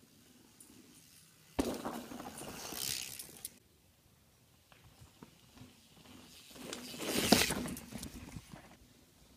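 Two mountain bikes going past on a dirt trail, each a burst of tyre noise and bike rattle. The first comes in suddenly about a second and a half in and lasts about two seconds; the second swells, peaks and fades away around seven seconds in.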